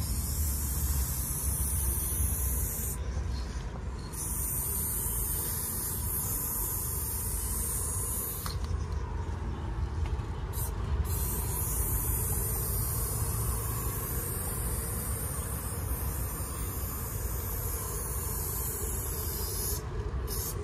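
Aerosol spray-paint can spraying in long bursts, a steady high hiss that stops briefly about three seconds in, again for a couple of seconds around the middle, and just before the end, over a low rumble.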